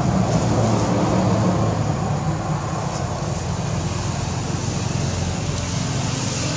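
Steady low rumbling background noise, a little louder in the first couple of seconds.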